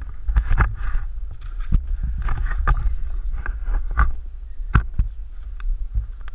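A GoPro action camera being handled and moved: irregular knocks and rubbing against its housing over a low rumble.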